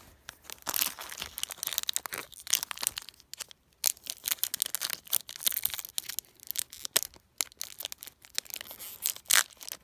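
Foil wrapper of a Pokémon trading card booster pack crinkling and tearing as it is opened by hand: an irregular run of sharp crackles and rustles with brief lulls.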